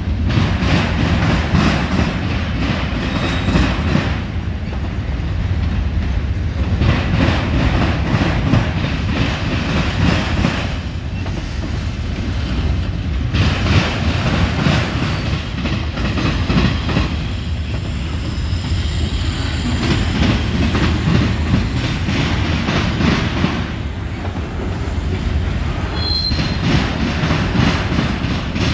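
Freight train's autorack cars rolling slowly across a railroad diamond, steel wheels clattering over the crossing's rail gaps. The clatter comes in rounds every six or seven seconds as each car's trucks cross, with quieter spells between, and a brief high wheel squeal near the end.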